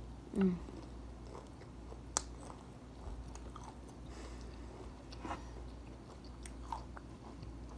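Chewing and biting close to the microphone as crispy fried chicken and corn on the cob are eaten, with a sharp click about two seconds in and a few faint crunches and clicks after.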